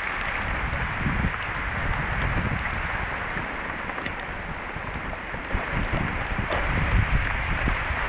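Steady rushing noise, with irregular low rumbling gusts typical of wind buffeting the microphone and a few faint clicks.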